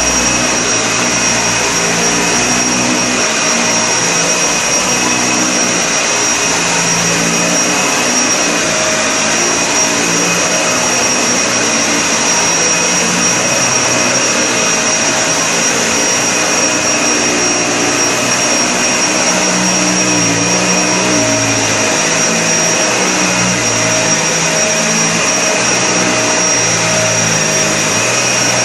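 Vacuum cleaner running steadily, with a thin high whine over its motor and airflow noise.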